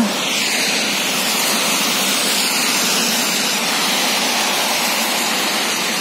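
Steady hiss of traffic on a wet multilane road: tyres on wet asphalt, with no single vehicle standing out.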